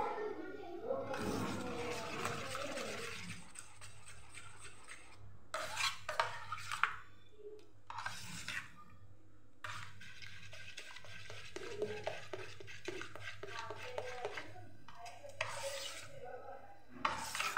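A steel spoon stirring thin lentil batter in a steel bowl: steady wet swishing, with a few short clinks of the spoon against the bowl's side.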